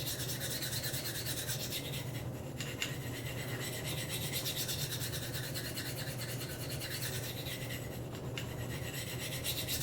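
Steel knife blade being stroked by hand along a medium Spyderco Sharpmaker ceramic stone with fair pressure, a steady scraping rasp with a couple of brief pauses between strokes.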